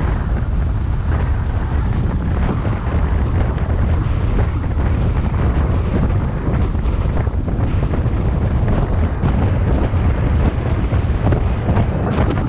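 Wind rushing over the microphone of a camera on a road bike descending at speed, a steady loud buffeting rumble.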